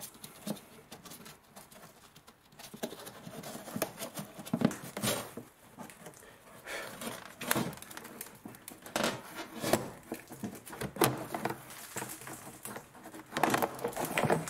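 Plastic wheel-arch liner of a Mercedes W203 being pulled and worked loose from the front wheel arch by hand: irregular scraping, rustling and knocks of plastic against the arch, busier after the first few seconds.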